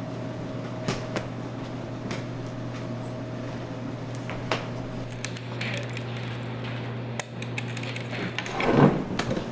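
Tiddlywinks chips clicking and clattering on a wooden table, a scatter of sharp clicks over a steady hum, with a shout near the end.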